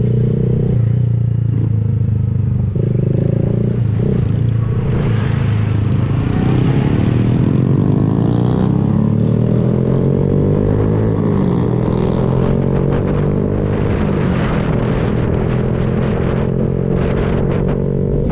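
Honda Grom's 125 cc single-cylinder engine running through an aftermarket Kemimoto exhaust with the baffle removed, heard while riding. The engine note rises and falls through the middle as the bike accelerates and changes speed.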